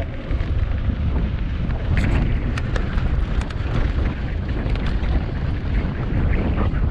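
Wind buffeting a bike-mounted camera's microphone as a mountain bike rolls fast over dry dirt singletrack, a constant heavy rumble. Short clicks and rattles from the bike and tyres on loose ground come through now and then.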